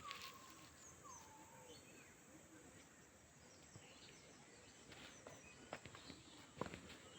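Near silence with a few faint bird calls: short falling whistles in the first two seconds, then a few faint clicks near the end.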